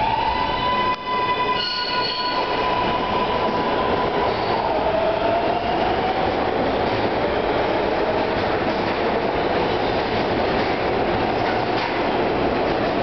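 A train of R143 subway cars accelerating out of the station: the electric motors' whine glides up and holds a steady pitch for the first few seconds, then drifts lower, over the loud, steady noise of the cars' wheels on the rails as they pass.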